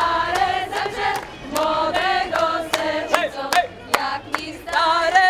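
A group of folk dancers singing a song together in unison while clapping their hands in time, about three claps a second.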